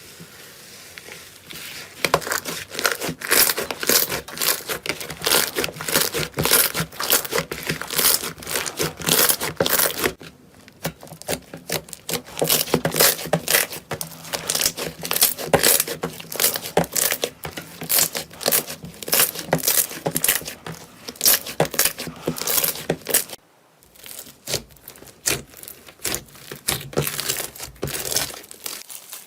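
Slime being squeezed and kneaded by hand close to the microphone: a dense, rapid run of clicks and crackles. It pauses briefly twice, about ten seconds in and again near the end.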